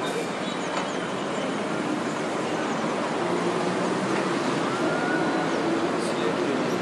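Steady outdoor road-traffic noise, an even rush with no clear single event.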